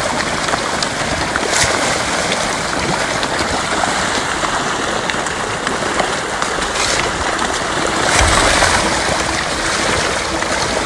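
Steady rushing, splashing water with a few sharper splashes on top.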